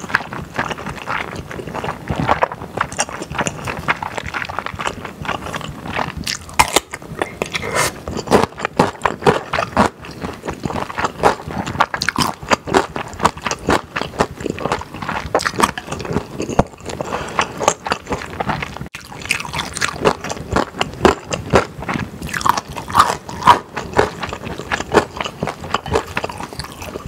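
Close-miked chewing of stir-fried yakisoba with beef brisket and thick glass noodles: a dense, uneven run of short mouth clicks and smacks.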